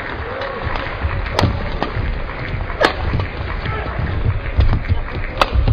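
Badminton rally: rackets striking the shuttlecock in sharp cracks, three strong hits roughly a second and a half apart with lighter taps between, over a steady murmur of the crowd.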